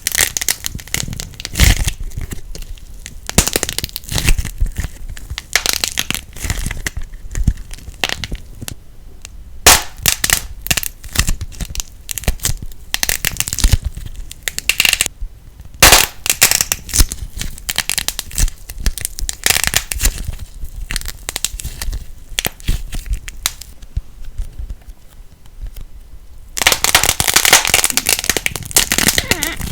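Slime being worked, giving dense, irregular crackles and pops, with a denser, steadier crinkling near the end.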